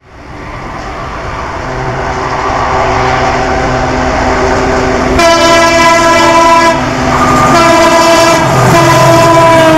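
WDP4 (EMD GT46PAC) diesel locomotive approaching at speed, its engine and rail noise growing steadily louder. From about halfway it sounds its multi-tone air horn in several long blasts with short breaks, the horn's pitch sagging slightly near the end.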